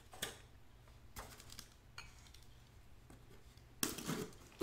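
Small cardboard box being handled: a few light knocks and rustles, then a louder spell of scraping near the end as the box is worked open.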